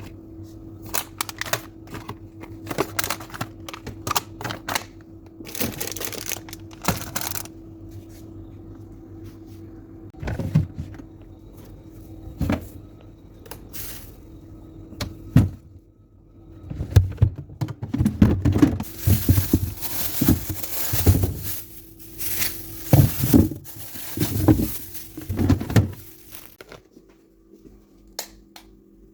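Food packages and containers being handled and placed while restocking a refrigerator: irregular clicks, knocks and plastic crinkling, busier and louder in the second half, over a steady low hum.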